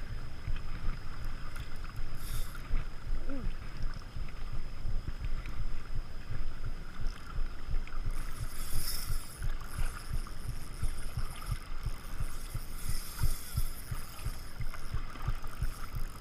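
Wind rumbling on the microphone in uneven gusts, over small waves lapping at a rocky shore.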